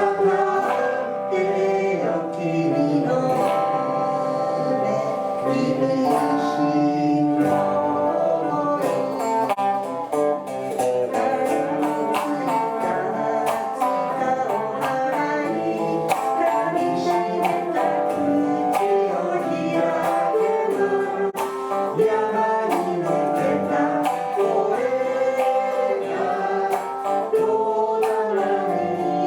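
Rock song with singing over guitar and a steady beat.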